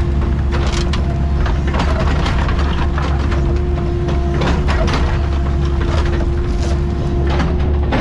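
Mini excavator's diesel engine running steadily under load, with a steady whine over it, while the bucket drags and levels stony soil, giving scattered sharp scrapes and clatters of stones.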